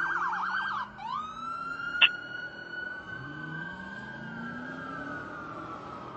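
Fire truck's siren on a fast yelp, switching about a second in to a wail that rises and then slowly winds down. A short sharp blip about two seconds in, and the truck's engine rising in pitch underneath as it accelerates.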